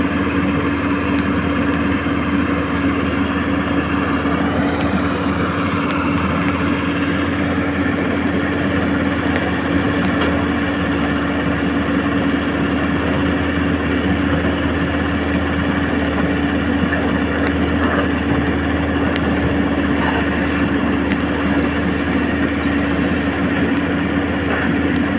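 Huina radio-controlled excavator running with a steady mechanical whir and a constant hum that holds the same pitch throughout.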